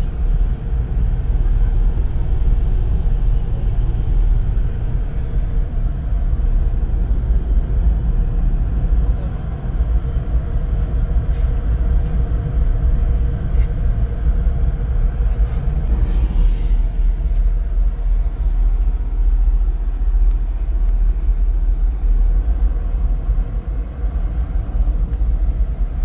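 Steady low vehicle rumble heard from inside a car's cabin.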